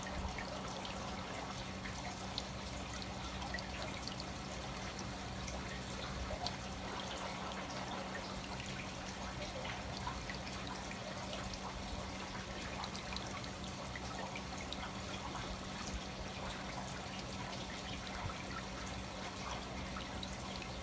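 Water trickling and dripping steadily in a canal stop-plank trench, a continuous patter of small drips, with a faint steady low hum beneath.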